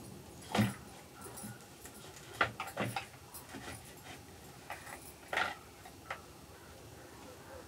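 Kitchen knife cutting into a firm raw green papaya: a few separate sharp chops and knocks, the clearest about half a second in, a quick cluster around three seconds and another strong one about five and a half seconds in.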